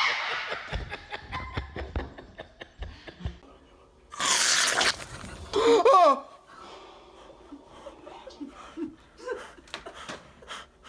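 People laughing, with a loud burst of noise about four seconds in and a short loud cry just after.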